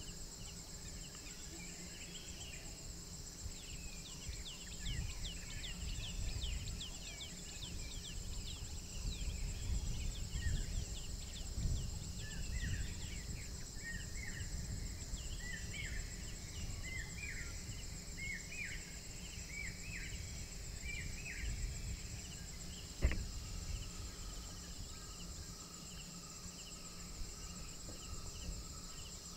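Night-time forest chorus: steady high insect trilling, with a run of many short chirping animal calls for most of the first twenty seconds. A single sharp click comes about two-thirds of the way through, followed by a faint steady tone, over low rumble.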